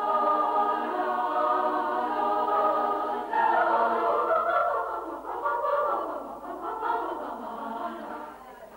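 Women's choir singing a cappella in several parts. Held chords give way about three seconds in to moving lines, and the singing grows quieter near the end.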